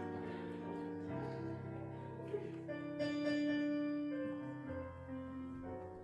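Background music of held piano-like keyboard chords, the notes sustained and changing every second or two, fading slightly toward the end.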